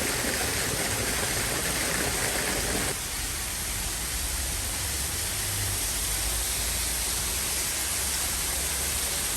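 Water rushing and splashing steadily down a cascade into the pools, heard as an even wash of noise. It turns slightly quieter and duller about three seconds in.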